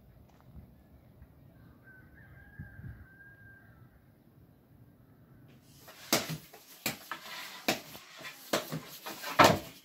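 A faint drawn-out bird call about two seconds in over a quiet background. Then, after about six seconds, a run of sharp knocks and thumps, roughly one a second and the loudest near the end, from work at a clay wood-fired bread oven.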